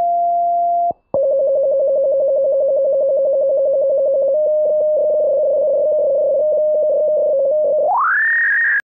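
Synthesized electronic beeping tones, a sci-fi robot-style sound effect. A held beep cuts off about a second in. A lower, rapidly pulsing tone follows and flips between two pitches, then sweeps up into a high whine near the end.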